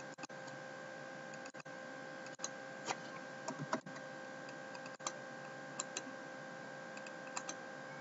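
Faint computer mouse clicks, scattered irregularly and sometimes in quick pairs, as a flower brush is stamped in Photoshop, over a steady low electrical hum.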